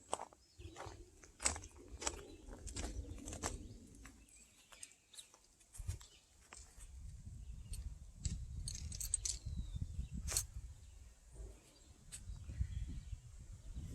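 Footsteps crunching along a dirt trail, irregular sharp clicks over a low rumble.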